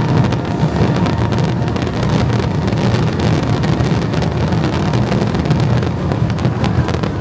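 Fireworks barrage: a continuous low rumble of overlapping booms with rapid crackling over it.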